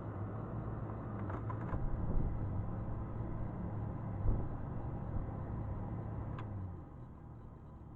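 A steady mechanical hum from a running motor, with a few light clicks and a single knock. The hum stops about seven seconds in.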